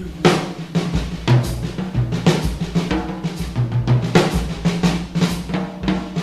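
Background music: a drum kit playing a steady beat over a bass line.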